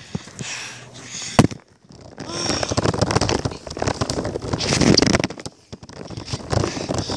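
Kick scooter's small hard wheels rolling over rough asphalt, a dense rattling crackle that starts about two seconds in, after a single sharp knock a little over a second in.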